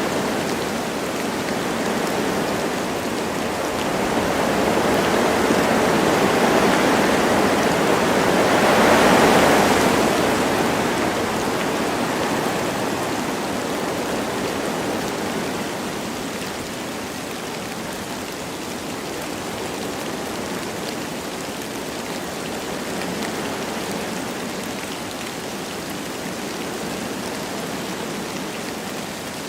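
Wind blowing through forest trees with light rain, a steady rushing hiss. A gust builds and peaks about nine seconds in, then eases off to a lower, even level.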